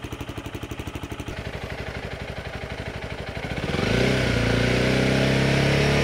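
Honda CRF300L Rally's single-cylinder engine through an aftermarket MotoX exhaust with titanium end can, baffle fitted: a steady pulsing idle, then about three and a half seconds in the revs rise quickly and are held steady at 4,500 rpm for a static noise test.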